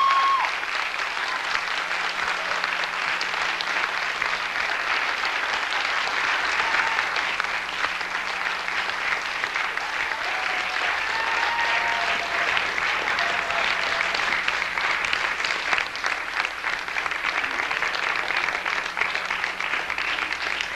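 Audience applauding steadily, with a few faint voices heard in the crowd partway through.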